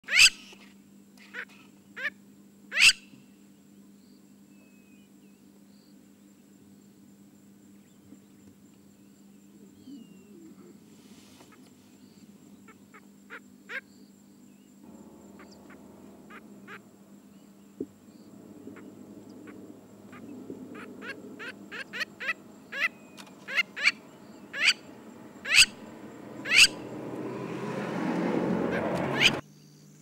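Crowned lapwings calling: short, sharp, strident calls, scattered at first and coming in quick succession in the second half. A rushing noise swells under the calls near the end.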